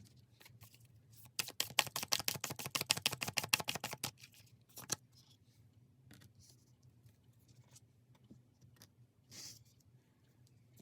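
A deck of tarot cards being shuffled: a rapid run of clicks, about ten a second, lasting close to three seconds, followed by faint scattered card taps and rustles.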